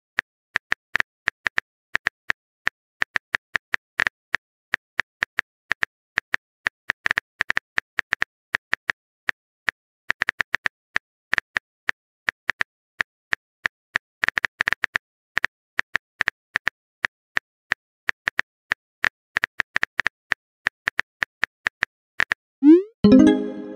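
Rapid, irregular clicks of a phone keyboard typing sound effect, several taps a second in uneven runs. Near the end comes a short rising swoosh, the message-sent sound.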